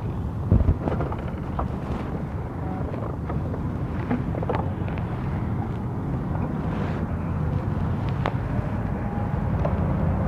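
Honda Click scooter engine running with wind noise on the microphone. A single knock comes about half a second in, with a few light clicks scattered after it.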